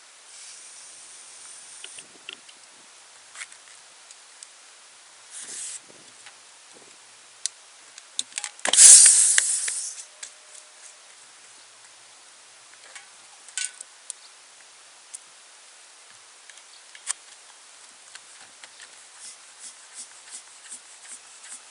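Ignited vapour inside an IRC TR011 Tourist tubeless motorcycle tyre goes off about nine seconds in as one loud, sudden blast that tails off over about a second: the explosion that snaps the bead onto the rim without a compressor. It is preceded by two short hisses and a few small clicks.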